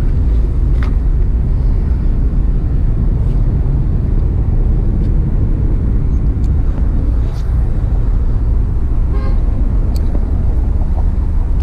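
Steady, loud low rumble of outdoor noise, with a short pitched tone about nine seconds in.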